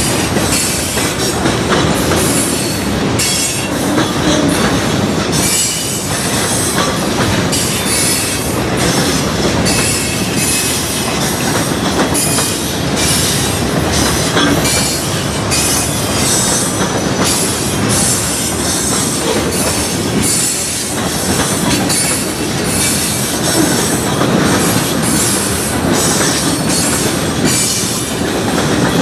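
Freight train boxcars rolling past at speed: a steady rumble of wheels on rail with a regular clickety-clack of wheelsets over the rail joints and faint high wheel squeals now and then.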